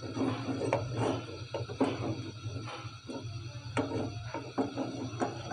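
A wooden spoon stirring thickening milk in a steel pot, knocking and scraping irregularly against the pot's bottom and sides as the milk is reduced. A steady low hum runs underneath.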